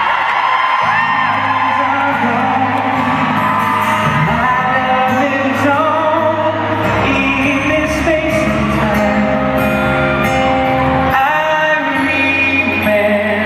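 Pop vocal group singing live into microphones over acoustic guitar, heard through an arena's sound system, with occasional whoops from the audience.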